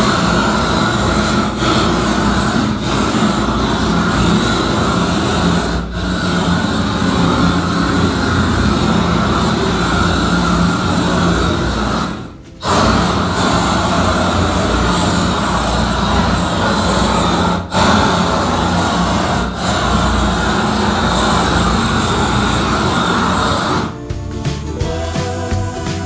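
Hand-held gas torch burning with a steady, loud rush as it heats and fuses a bitumen waterproofing membrane. The noise drops out briefly a few times, and music takes over near the end.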